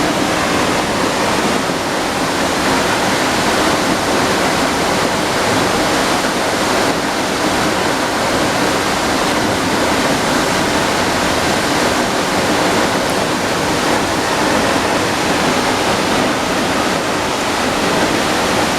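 Waterfall: falling water in a steady, loud rush.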